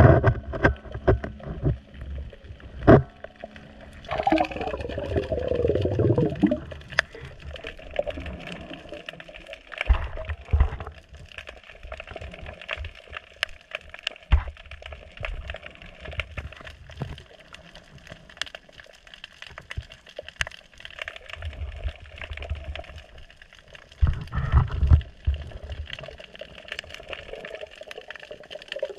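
Underwater sound picked up by a camera in a waterproof housing: water gurgling and bubbling, with many small clicks and knocks, a louder gurgling burst with falling pitch about four seconds in, and a few low thumps later.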